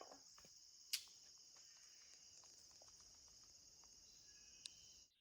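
Crickets chirping in a steady high-pitched chorus, with one sharp click about a second in and a fainter click near the end.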